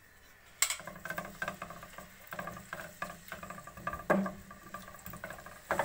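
Garlic paste and whole spices sizzling and crackling in hot oil in an aluminium pot, stirred with a wooden spoon. A sharp click comes just over half a second in, and the crackling starts with it and continues with a steady low hum.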